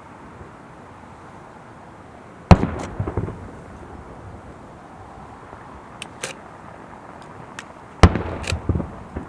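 Aerial firework shells bursting: a loud bang about two and a half seconds in and another near the end, each followed by a few smaller bangs, with lighter pops in between.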